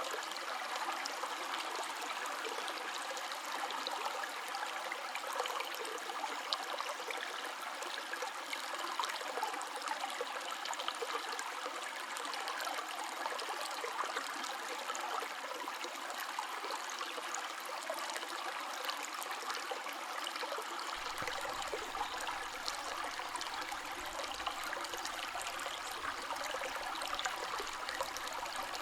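River water flowing steadily, an even, continuous rush of water.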